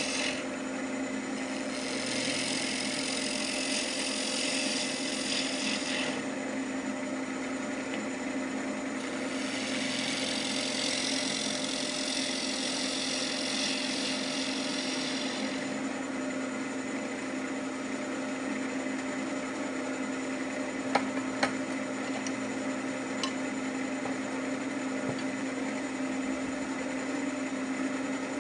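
Wood lathe running with a steady motor hum while a turning tool cuts the spinning pecan bowl blank. Two long stretches of hissing shaving noise come in the first half. After that the lathe runs on with lighter cutting and a few sharp clicks.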